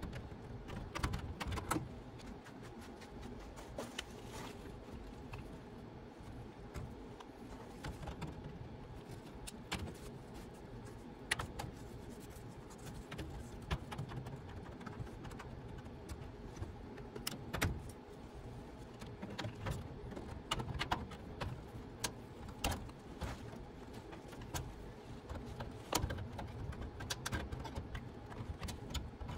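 Irregular light clicks and metallic clinks over a steady low hum.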